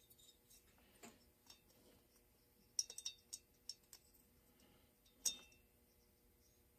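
Faint clicks and clinks of metal chainsaw cylinder and piston parts being handled: a quick cluster of clinks about three seconds in and one sharper clink a little past five seconds.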